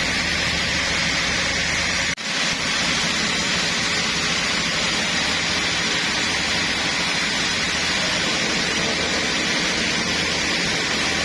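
Sawmill machinery running steadily: a low engine hum under a loud, even hiss. It drops out for a moment about two seconds in.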